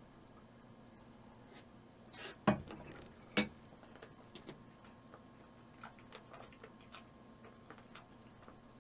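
Close-miked chewing of spicy chicken feet with rice: faint wet mouth clicks throughout, and two louder sharp knocks about a second apart, a little over two seconds in.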